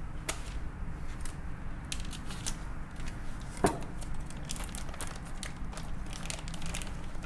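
A vacuum-sealed plastic bag holding a tuna steak being torn open and pulled apart by hand: a run of irregular crinkles, crackles and tearing sounds.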